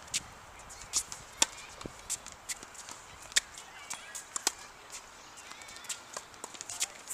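Tennis rally on a hard court: rackets striking the ball and the ball bouncing, a string of sharp pops about a second apart.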